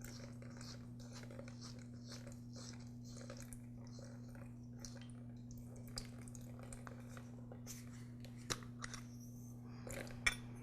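Faint small clicks and scrapes of a lawn mower carburetor being handled as its float bowl is unscrewed and taken off, with a few sharper clicks near the end, over a steady low hum.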